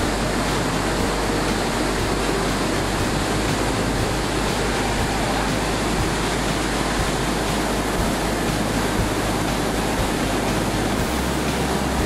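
The Krimml Waterfalls, a large alpine waterfall: a steady, dense rush of falling and churning white water.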